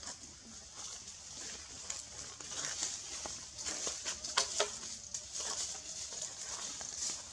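Forest ambience: a steady high hiss with scattered short clicks and crackles of leaves and twigs. The sharpest two come a little past the middle.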